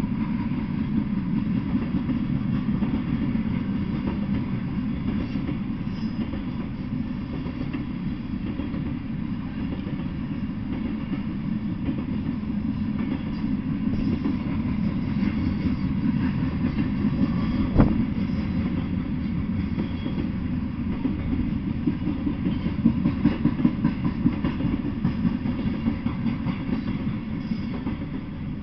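Freight train of open-top hopper cars rolling past: a steady low rumble of steel wheels on rail with clickety-clack over the rail joints. There is one sharp knock about eighteen seconds in, and the sound fades as the last car clears near the end.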